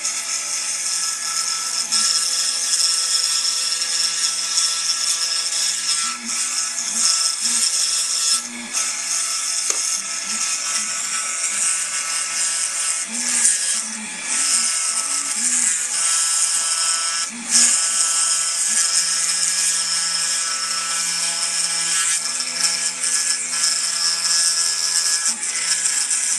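CPC-RC55 desktop CNC wood carving machine cutting wood: a steady motor whine with a bright cutting hiss, broken by short low shifts in pitch and a few brief dips.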